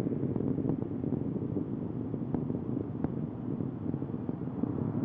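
Distant roar of space shuttle Atlantis's solid rocket boosters and main engines during ascent: a steady low rumble with a few faint crackles.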